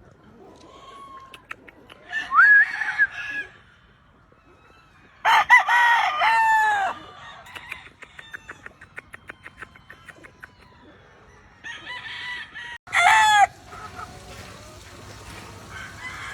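Gamefowl roosters crowing: several separate crows, the longest and loudest about five seconds in. A run of quick clicks falls between the crows.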